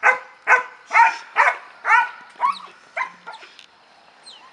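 Young German shepherd puppy barking repeatedly, about two barks a second, at a helper's bite pillow during protection-drive work; the barks grow weaker and trail off after about two and a half seconds.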